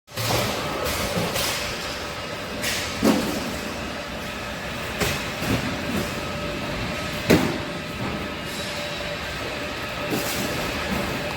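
Steady running noise of a moving vehicle, with a faint steady hum and a few sharp knocks and rattles, the loudest about three and seven seconds in.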